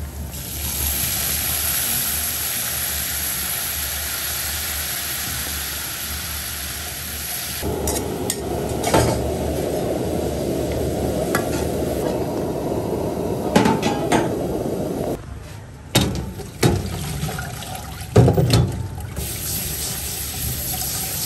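Minced garlic frying in oil in a pan, a steady sizzle. About eight seconds in it gives way to sliced sea snail meat bubbling in boiling water, with a few clinks of a utensil. Near the end come a few sharp knocks in a steel sink, then water poured over the snail slices in a colander.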